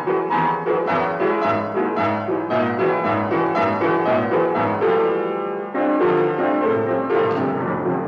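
Piano tone clusters, blocks of neighbouring keys struck together in a steady percussive rhythm, about two to three strikes a second. A little past the middle, one cluster is held and rings for about a second before the striking starts again.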